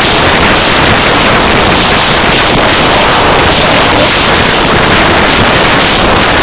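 Noise music: a loud, dense, unbroken wall of hiss and rumble across the whole range, with no beat or pitch.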